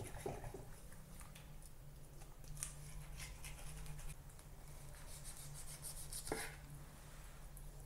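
Faint slicing and scraping of a chef's knife cutting a bone out of a raw turkey thigh on a wooden cutting board, with scattered soft ticks and one louder knock about six seconds in.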